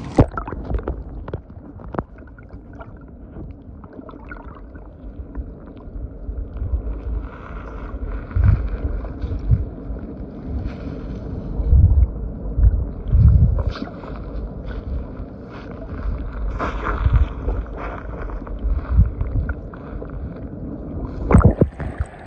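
Muffled sloshing and gurgling of sea water around a camera microphone held just under the surface, with uneven low thumps as the water and the hand move it. Near the end a sharp splash as it comes back up out of the water, and the sound opens up again.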